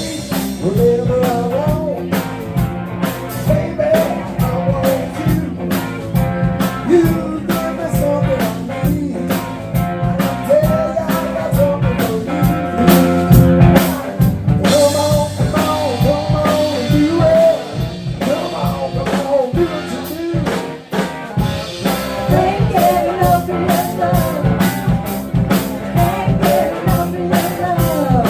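Live band playing blues-rock with a drum kit and guitar, and a melodic lead line that bends in pitch over a steady beat.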